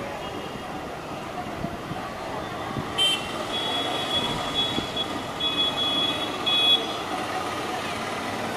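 Steady background traffic noise, with high-pitched beeping tones that come and go from about three to seven seconds in.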